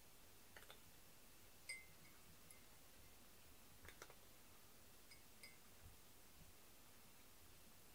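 A cat eating from a ceramic bowl, faint and quiet: a few soft crunches and light clicks, with sharp ringing clinks against the bowl, the loudest about a second and a half in.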